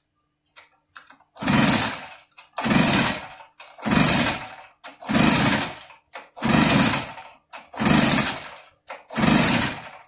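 Recoil starter of an Echo PB-8010 backpack blower's two-stroke engine pulled seven times in quick succession, a little over a second apart, each pull turning the engine over without it firing. It is being cranked with the throttle wide open and the choke off to clear the engine in case it is flooded.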